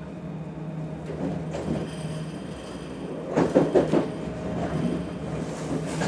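Interior of a regional passenger train: a steady low hum from the train's running equipment, with a short, loud cluster of knocks and clatters about three and a half seconds in.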